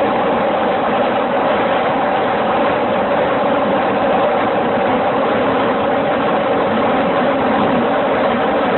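A heavy engine running at a steady speed: an unchanging, loud drone with no separate knocks or changes.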